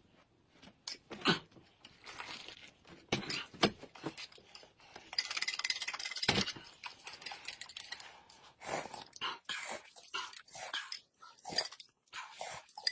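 Spoon clinking and scraping in glass mugs as powdered drink mix is spooned in, then water poured from a kettle into a glass about five seconds in, and slurping sips from spoons near the end.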